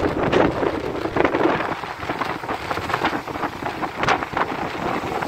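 Wind blowing across the phone's microphone in uneven gusts.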